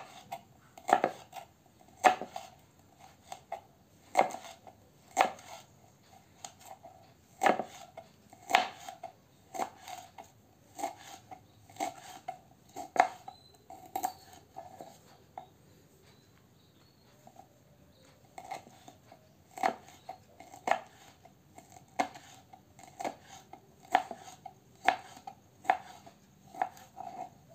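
Kitchen knife slicing green chilies on a wooden cutting board: sharp knocks of the blade on the board, roughly one a second, each with a short ring. The cutting stops for about three seconds a little past the middle, then goes on.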